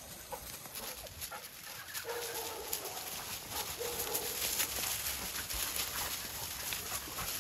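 Dogs padding and sniffing through dry eucalyptus leaf litter, with faint crackling of leaves underfoot and a faint whine twice, about two and four seconds in.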